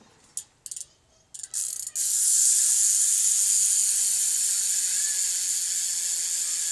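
Profile Mini rear hub on a 24-inch bicycle wheel freewheeling as the wheel is spun by hand: a few short clicks in the first two seconds, then the steady, loud, high buzz of the ratcheting pawls, slowly easing off as the wheel coasts.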